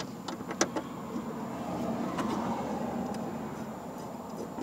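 A few sharp clicks of a plastic dash panel and a screw being handled and fitted by hand, most of them in the first second and one more about two seconds in, over a steady background hum.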